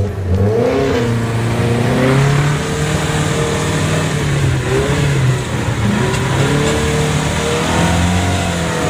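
Off-road vehicle's engine running under load, its revs rising and falling as it drives up a slippery dirt track, heard from inside the cab. The revs climb sharply right at the start.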